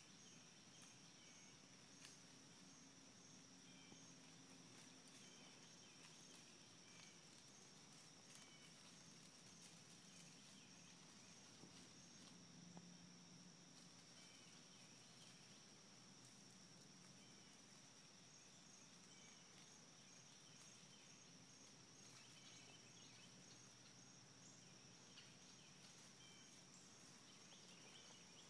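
Near silence in woodland: a faint, steady, high-pitched insect drone, with faint regular chirping, a few chirps a second, pausing in the middle stretch, and scattered faint distant bird chirps.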